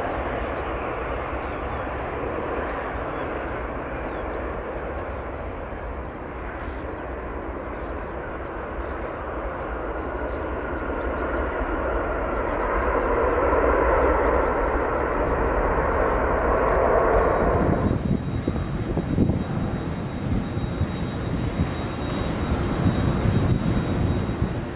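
Jet airliner's engines on landing approach, a steady roar that grows louder as it passes. About eighteen seconds in it gives way suddenly to low wind rumble on the microphone.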